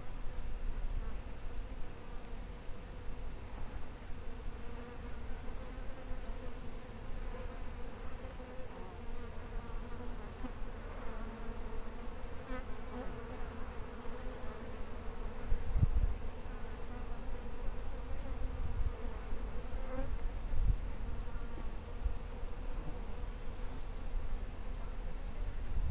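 A flying insect buzzing steadily, its hum wavering slightly in pitch, over low wind rumble. A soft low thump about two-thirds of the way through.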